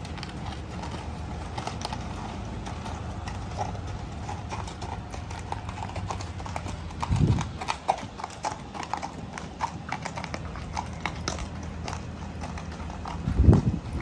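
Paint horse walking on hard-packed dirt and gravel, its hooves clip-clopping in a steady run of sharp strikes. Two louder, deeper rushes of sound come about halfway through and just before the end.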